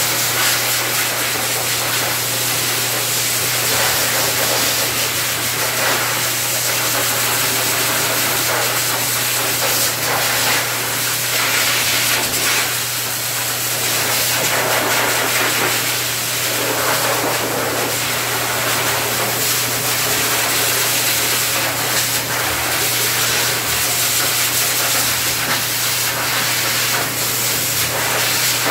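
Dog grooming blow dryer running steadily, its air rushing out of the hose nozzle over a low motor hum. The rush swells and eases a little as the nozzle moves through the dog's wet coat.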